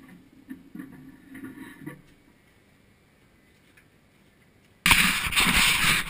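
Faint knocks and creaks, then a spell of near silence; near the end a sudden loud, rough scraping rumble starts and keeps on.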